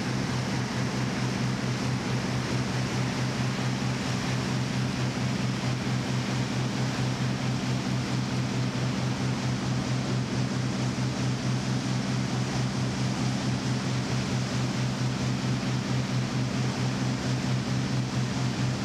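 Outboard boat engine running steadily at speed, a constant low drone with a fast, even pulsing, over a continuous hiss of spray and wind.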